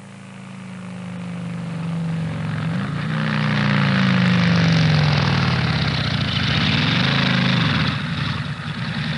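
A motor vehicle's engine running, getting louder over the first few seconds. Its pitch rises and falls a couple of times as the engine speed changes.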